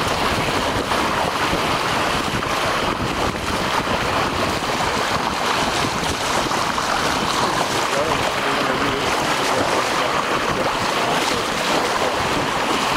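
Sea water rushing and splashing along the hull of a moving boat as it cuts through the water, with steady wind buffeting the microphone.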